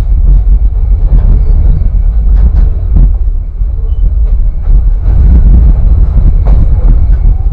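Railway car rolling along the track: a loud, steady low rumble with a few sharp clanks from the wheels and running gear, heavily buffeted by wind on the open microphone.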